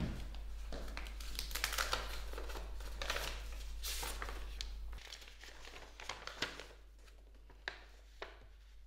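A paper envelope being opened and a folded letter pulled out and unfolded, the paper crinkling and rustling. The rustling eases off about five seconds in, leaving a few sharp paper crackles.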